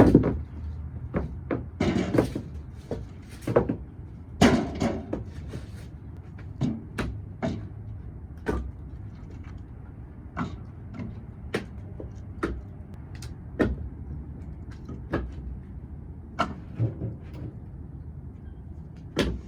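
Split firewood being stacked: irregular wooden knocks and clunks as logs are set down on the pile, about one every second or two, the loudest near the start and about four and a half seconds in, over a steady low rumble.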